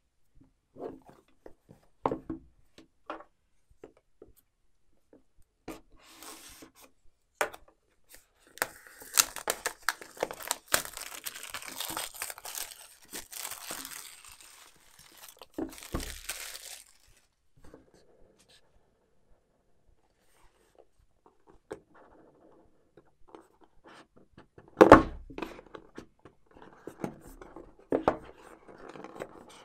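Cardboard smartphone box handled on a table with light taps and knocks. For several seconds, the box's plastic shrink wrap is torn and crinkled off. Later comes a heavier thump of the box on the table, then cardboard rubbing and sliding as the sleeve is worked loose.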